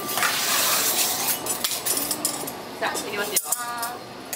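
Metal tools clinking and scraping against the work table as a batch of handmade candy is cut apart by colour.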